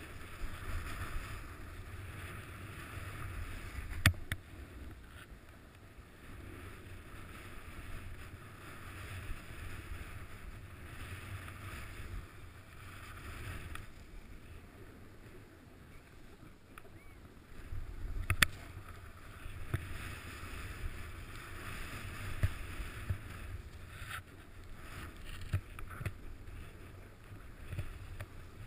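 Snow hissing under a rider's board or skis while carving downhill in soft snow. The hiss swells and fades with each turn over a low wind rumble on the microphone, and two sharp knocks come about four seconds in and again near eighteen seconds.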